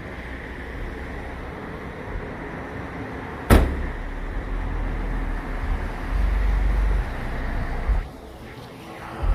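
Outdoor vehicle and traffic noise with low rumble on the microphone, and one sharp, loud knock about three and a half seconds in. The rumble swells from about six seconds and drops away at eight, with a smaller knock near the end.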